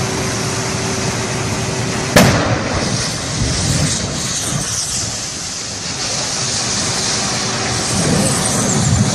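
A burning vehicle exploding: one sharp blast about two seconds in, then a low rumble that swells again near the end, over a steady rushing noise.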